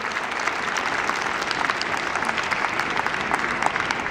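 Audience applauding, a dense run of many hands clapping throughout.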